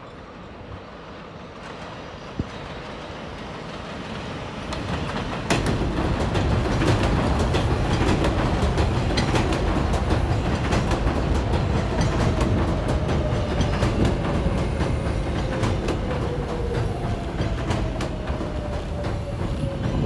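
A New York City Subway Kawasaki R188 train on the 7 line approaches, growing louder over the first five seconds, then comes in along the platform with a sudden jump in loudness. Its wheels clack over the rail joints, while a thin whine falls slowly in pitch as the train slows into the station.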